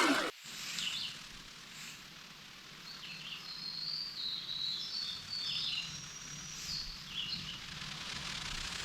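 Songbirds chirping and trilling in several short high phrases over a soft steady forest background. A battery chainsaw's whine cuts off abruptly at the very start.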